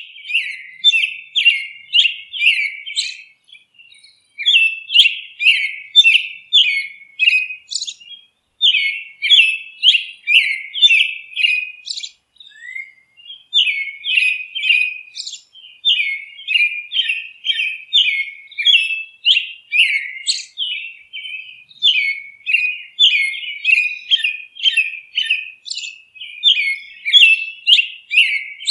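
Bird chirping: repeated sharp chirps, about two a second, in runs broken by brief pauses.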